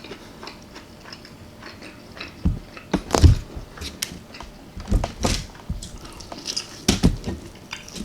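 Close-miked chewing and biting of baked chicken with tomato paste and mozzarella. It is quiet with faint mouth clicks at first, then a string of loud, short chews and bites from about two and a half seconds in.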